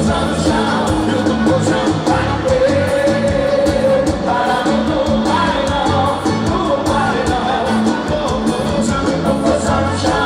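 Live forró band music with a male lead vocal singing over a steady beat.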